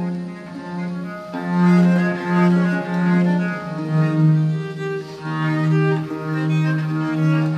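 Music on bowed strings: long held low notes with higher parts above them, the low line stepping down in pitch about halfway through.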